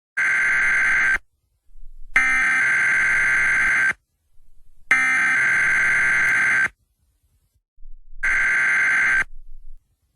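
Electronic alarm buzzer sounding a warning in four blasts of a steady tone, each one to two seconds long, with short silences between them.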